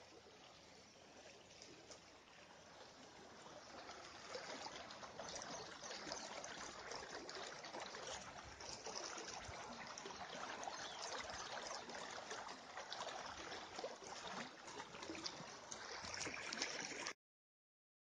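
Stream water flowing in a steady, splashy hiss, faint at first and growing louder over the first few seconds, then cutting off abruptly near the end.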